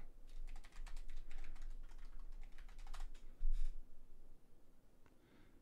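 Typing on a computer keyboard: a quick, uneven run of key clicks, with one heavier thump about three and a half seconds in, then the typing stops.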